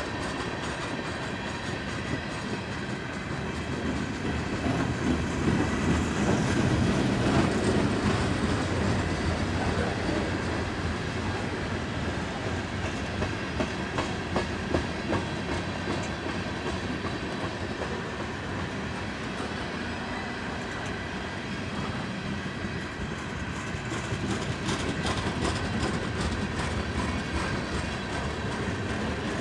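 Railroad cars rolling past on the track, with wheels clicking over the rail joints; the sound swells a few seconds in.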